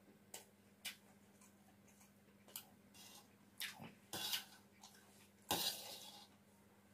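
A steel spoon clicking and scraping on a stainless steel plate as fried rice is scooped up, with eating sounds: scattered light clicks, then two longer, louder scrapes about four and five and a half seconds in, over a faint steady hum.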